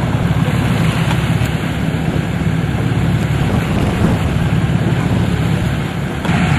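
Boat engine running steadily with a low drone under a rush of wind and water noise, heard from on board a moving boat; the noise steps up a little just before the end.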